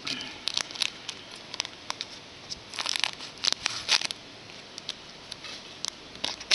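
Trading cards being handled and flipped through by hand: a run of quick light clicks and slides, with a burst of crinkling about three seconds in.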